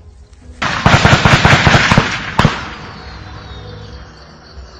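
Automatic gunfire: a rapid burst of shots lasting nearly two seconds, ending in one sharp crack, with the rumble of the echo fading away after.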